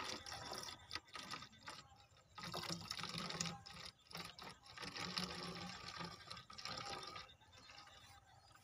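Diesel fuel poured from a plastic jerrycan into a glass bottle, trickling and glugging in uneven spurts with short breaks.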